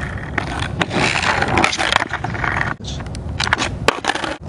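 Skateboard wheels rolling on rough pavement with a gritty rumble, then several sharp clacks of the board hitting the ground near the end.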